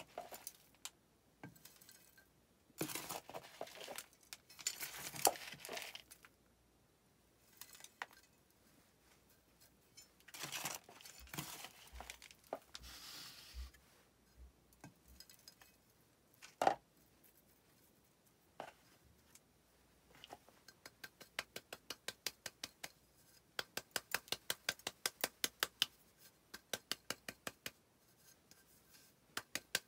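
A hand trowel scoops loose potting mix and pours it into a plastic plant pot, with gritty rustling and scraping and one sharp click. From about two-thirds of the way in comes a quick, even run of light taps on the pot, settling the soil around the repotted fern.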